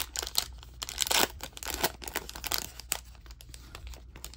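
Foil wrapper of an Upper Deck hockey card pack being torn and peeled open, crinkling as the stack of cards is pulled out. The crackling is busiest in the first three seconds, then thins out.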